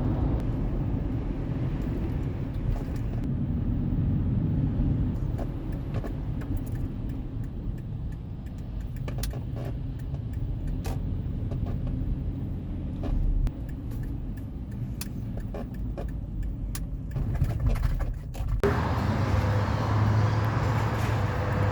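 A car being driven: a steady low rumble of engine and road noise, with scattered small clicks and rattles. About 19 seconds in the sound changes abruptly to a steadier, louder hum.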